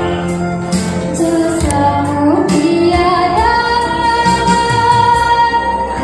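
Girls' choir singing, led by a soloist on a microphone, over backing music with a steady beat; a long high note is held through the second half.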